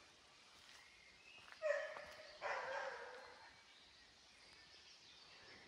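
A dog barks twice, about one and a half seconds in and again just under a second later, the second bark longer.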